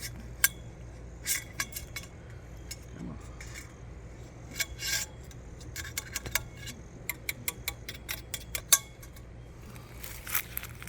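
Irregular metal clicks and clinks from a telescoping metal leg being worked by hand, its inner tube slid down inside the outer tube until the spring button engages in its hole.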